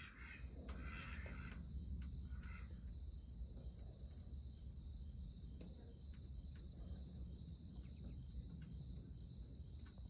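Insects trilling steadily at a high pitch, with a faint low rumble underneath and a few short, higher calls in the first three seconds.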